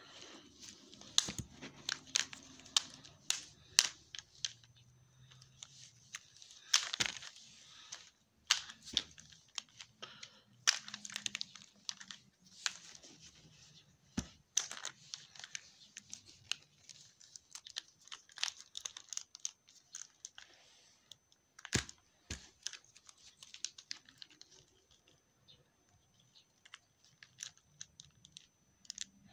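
Plastic wrestling action figures being handled and knocked about close to a phone's microphone: irregular clicks, clacks and rustling, with a few louder knocks.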